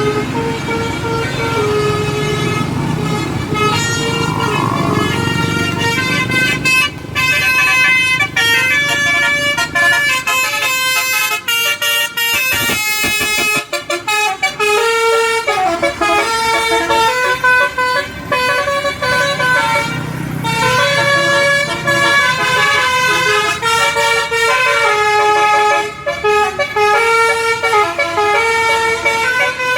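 A bus's 'telolet' multi-tone horn playing a tune of quick stepped notes over the bus's running engine. The engine rumble is heard most in the first seven seconds and again about twenty seconds in.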